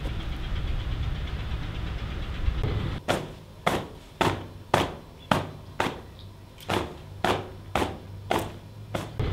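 A steady low rumble, then from about three seconds in a run of about eleven sharp cloth snaps, roughly two a second, as a dark garment is shaken out hard.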